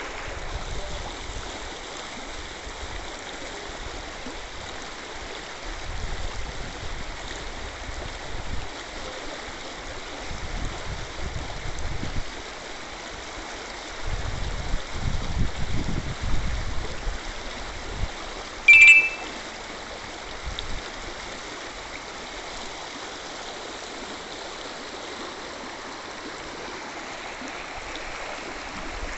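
Floodwater rushing along a street: a steady rushing hiss with louder low rumbling stretches. About two-thirds of the way through, a brief high-pitched squeak cuts in and is the loudest sound.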